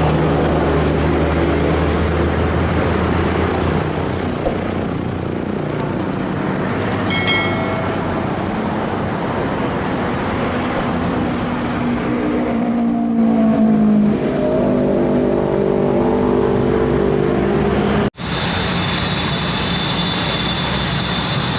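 Komatsu PC200 excavator's diesel engine running under hydraulic load, its pitch rising and falling in the middle as it strains, with a short high squeal about seven seconds in. The sound breaks off for an instant near the end and carries on at a steadier pitch.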